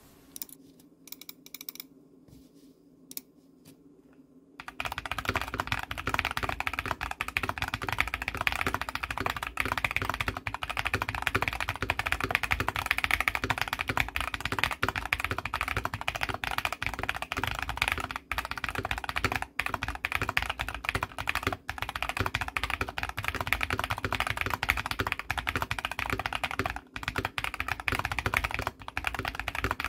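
Typing on an Ikki68 Aurora mechanical keyboard with Coffee Chip Ice Cream switches. It begins with a few scattered key presses, then becomes fast, continuous typing about five seconds in.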